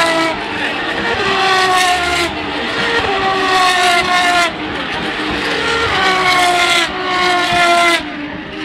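Formula Renault 3.5 single-seater race cars accelerating hard past the fence, the engine note climbing in pitch and dropping sharply at each upshift, over and over.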